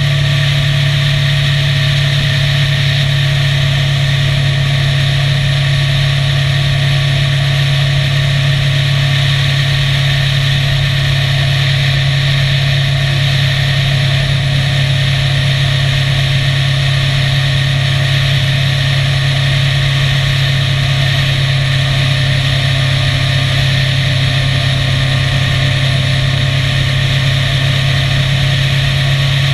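Motorcycle engine running steadily at highway cruising speed, heard from the bike as a constant low drone with an even hiss of wind over it.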